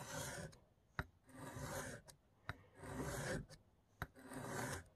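Steel blade of a Spyderco Para Military 2 tanto (M4 steel) drawn across a wet sharpening stone in four separate single strokes, each a short scrape that starts with a sharp tick as the edge meets the stone. The strokes are on the curved tip section, with the blade held at a fixed angle.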